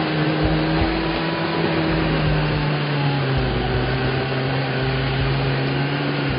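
Off-road 4x4 engines held at high revs as a Suzuki Samurai spins its wheels in deep mud, with a Suzuki Vitara just ahead of it; a loud, steady drone whose pitch sags slowly, with the Samurai's tyres churning and throwing mud.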